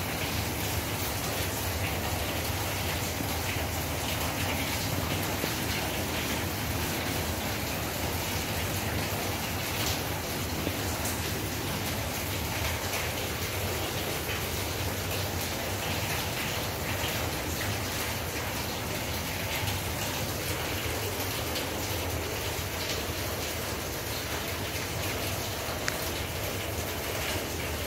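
Steady rain falling on hard ground: an even hiss with a few sharper ticks scattered through it.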